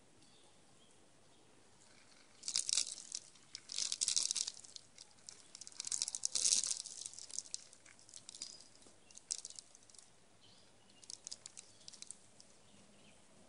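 Eastern gray squirrel feeding on mixed bird seed and corn close to the microphone: crunching and rustling as it chews kernels and noses through the seed pile, in about five bursts, the first starting a couple of seconds in.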